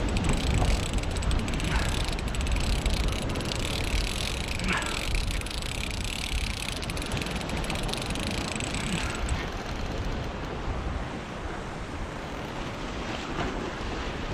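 Big spinning fishing reel ticking rapidly as line is wound or drawn off against the drag, over wind on the microphone and surf. The ticking dies away about nine seconds in.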